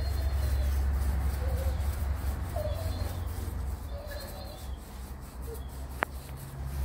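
A few short, faint animal calls over a low steady rumble, with one sharp click about six seconds in.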